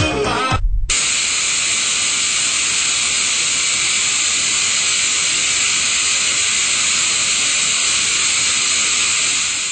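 Music cuts off abruptly under a second in and is replaced by a steady, loud hiss of analog TV static, mostly in the high range.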